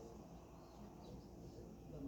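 Near silence: room tone with a faint, indistinct murmur of distant voices.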